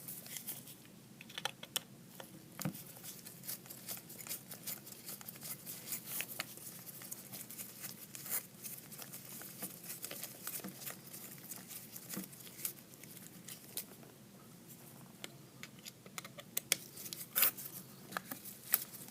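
Light, irregular clicks and taps of hands working a grip panel and its aluminum checkered insert off a Kimber 1911 pistol frame.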